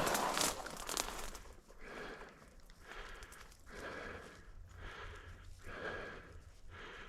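Footsteps crunching through dry cover for about the first second and a half, then close heavy breathing in an even rhythm, one swell about every second.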